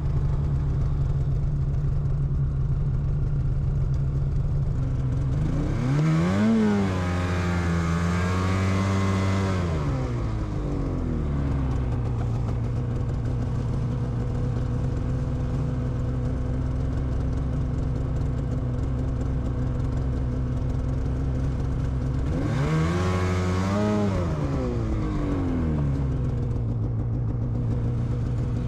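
Snowmobile engine idling steadily, revved up and back down twice, first about five seconds in and again near the end.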